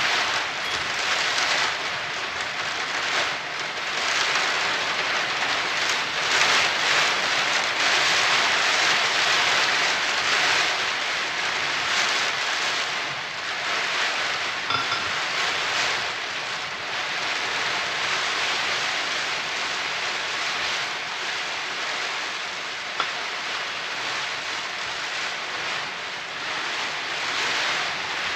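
Heavy rain making a steady, dense hiss, with one brief click near the end.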